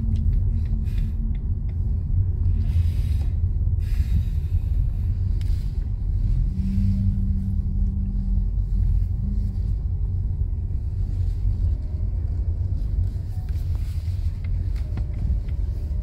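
Steady low rumble of a car driving, engine and tyre noise heard from inside the cabin, with scattered small knocks. A steady hum rises over it for a couple of seconds about halfway through.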